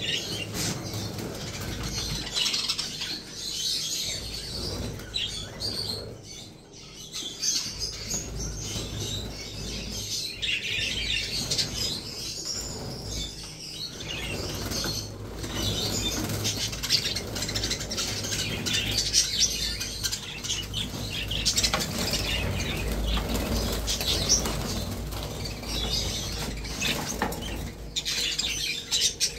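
A flock of budgerigars fluttering and flapping around their aviary flight, with some chirping, as they scatter from a net going in to catch the males.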